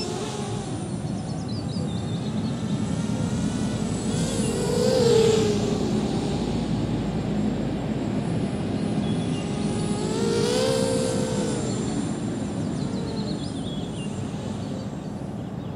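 250-size FPV racing quadcopter's motors and propellers buzzing in flight, the whine rising and falling in pitch as the throttle changes and growing louder twice, about five and ten seconds in.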